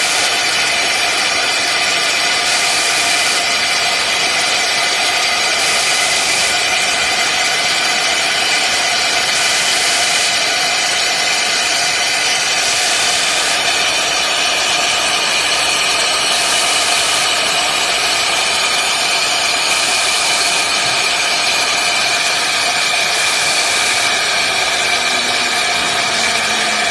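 CNC router spindle running at high speed while its end mill cuts through an acrylic sheet: a steady whine of several tones with a cutting hiss that swells every three to four seconds. Low gliding tones come in near the end.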